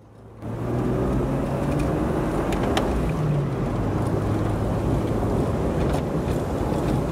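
Vehicle driving on a rough dirt road, heard from inside: a steady low engine and road rumble with a few sharp knocks from the bumps, fading in over the first half second.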